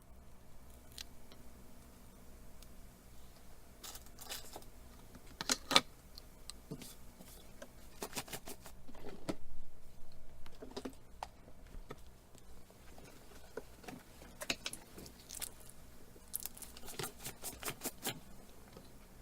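Small hand tools clicking and scraping on a smartphone's frame while old adhesive is cleared off. Scattered sharp clicks and short scrapes, with a quick run of about eight clicks near the end.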